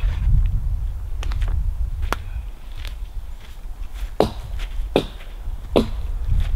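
Footsteps: sharp, fairly evenly spaced steps about one every three-quarters of a second, clearest in the second half, over a steady low rumble.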